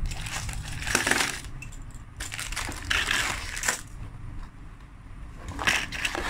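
Cardboard box and plastic packaging of a Beyblade set rustling as it is opened, with hard plastic parts clattering out onto a tabletop, in several bursts.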